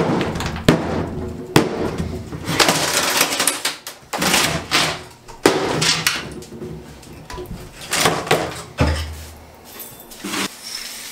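A wooden particleboard cabinet being pulled apart and its panels handled: a run of sharp knocks, cracks and clattering of boards.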